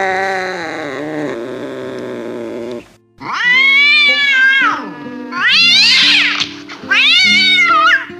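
Angry cat yowling in four long drawn-out calls, each rising and then falling in pitch, the first the longest, over background music with steady held notes.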